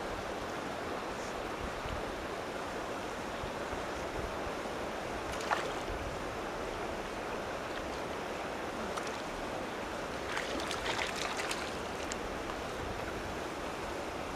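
Steady wind rushing over the camera microphone with water lapping at the pond bank, broken by a sharp click about five and a half seconds in and a short run of splashes around ten to eleven seconds in as the hooked fish fights near the surface.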